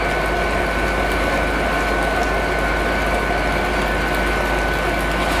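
Class 66 diesel locomotive's two-stroke V12 engine running steadily as the locomotive moves off light along the platform road, with a constant high whine over the engine rumble.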